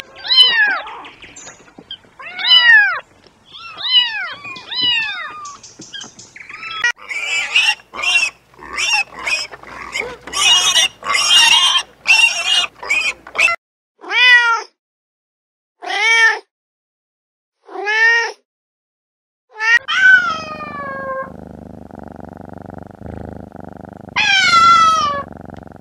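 Kittens meowing over and over, short calls that rise and fall in pitch. In the middle come a few seconds of denser, noisier squealing, and near the end a low steady hum runs under the last meows.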